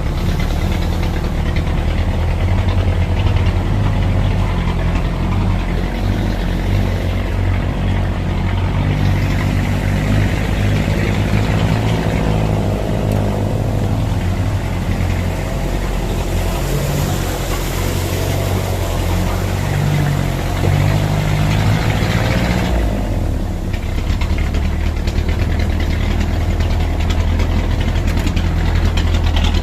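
Off-road vehicle engine running at low revs, its pitch shifting up and down throughout, with a brief drop in the hiss about 23 seconds in.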